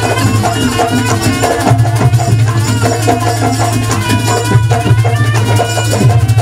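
Live jaranan accompaniment: a Javanese gamelan-style ensemble of drums and gongs plays loudly and continuously, with dense strikes over a steady low hum.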